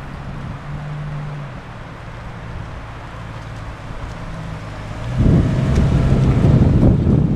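1999 Jeep Cherokee XJ's 4.0-litre inline-six engine running as the Jeep drives slowly along a dirt trail toward the microphone, with a steady hum. It gets suddenly much louder about five seconds in as the Jeep passes close by.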